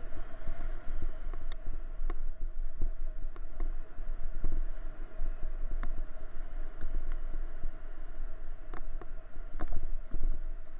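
A dog sulky rolling over a dirt bush track: a steady rumble from the wheels and frame, with scattered clicks and knocks from the cart rattling over bumps.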